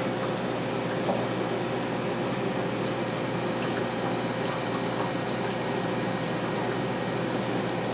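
Steady whirring hum of a running industrial ultrasonic aqueous cleaning system, with a faint steady tone underneath.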